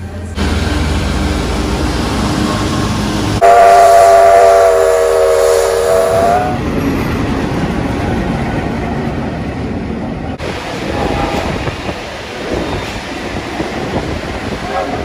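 Trains running on the rails, with a diesel locomotive's horn sounding one steady chord of several notes for about three seconds, a few seconds in.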